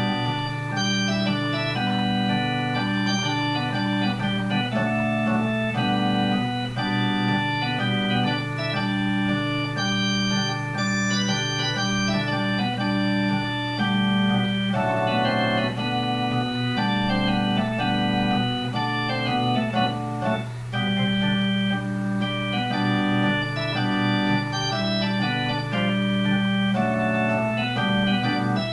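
Improvised keyboard music played in an organ voice: sustained chords that change every half second or so over a steady held low note.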